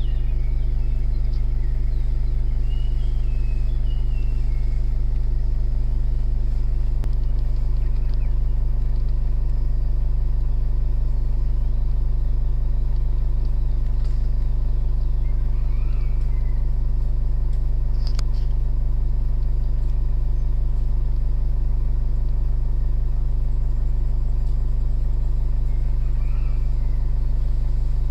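Car engine idling with a steady low hum; birds chirp briefly a few times.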